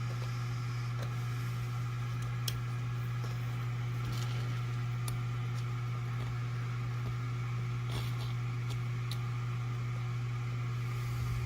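A steady low hum, with a few faint, light clicks scattered through it as nylon screws are dropped through the top plate and started into their threads by hand.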